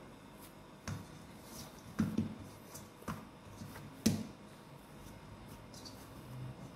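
Soft cookie dough being pressed and rubbed around a stainless steel mixing bowl to gather the finished dough into a ball, with four sharp taps against the metal about a second apart.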